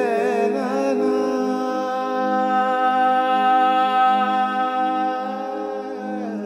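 Ambient background music: one long held note, wavering at first and then steady, over a steady drone. The held note falls away near the end.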